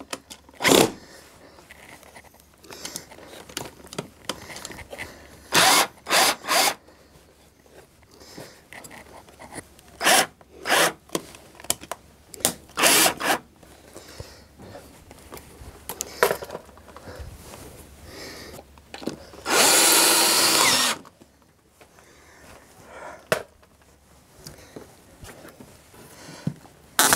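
Cordless drill driving screws into a wooden upright, in a series of short bursts, with one longer run of about a second and a half near twenty seconds in.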